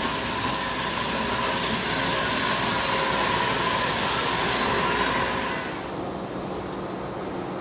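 Steady machinery noise, a loud hissing whir with a steady hum in it. About six seconds in the hiss drops away, leaving a quieter, duller hum.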